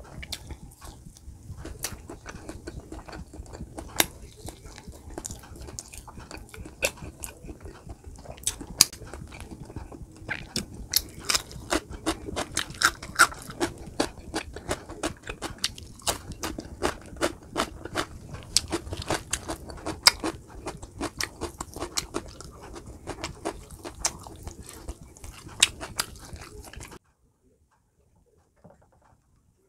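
Close-miked chewing and mouth sounds of someone eating, with many sharp smacks and clicks. It cuts off abruptly near the end, leaving near silence.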